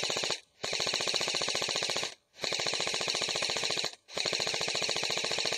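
Bravo RDW airsoft electric rifle with a Systema motor and mosfet firing full-auto in long bursts, about a second and a half each, with short pauses between.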